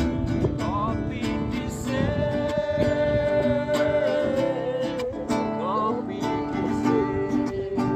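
Background music: strummed acoustic guitar chords under a held, sliding melody line.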